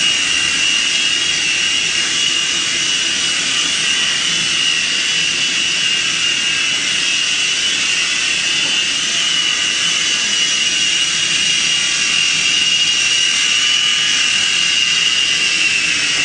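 SYMA S026 mini RC helicopter's small electric motors and rotor blades running in flight: a steady high-pitched whine over a hiss.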